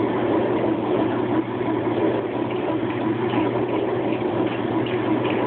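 Whirlpool top-loading washing machine running steadily in its spin-rinse: a motor hum with water rushing through the drum.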